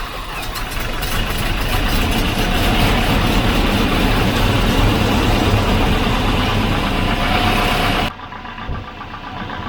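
Volvo redblock four-cylinder engine catching after cranking and running at a raised, steady speed. About eight seconds in it drops suddenly to a quieter, lower running sound.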